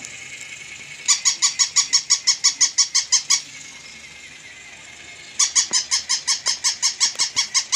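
Plush battery-operated toy dog giving its electronic bark: two runs of quick, high yips, about five a second, each lasting a couple of seconds, the first about a second in and the second starting past the middle.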